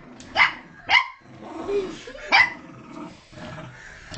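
Dogs growling in play during a tug-of-war over a toy, with three sharp barks in the first half and a low growl running between them.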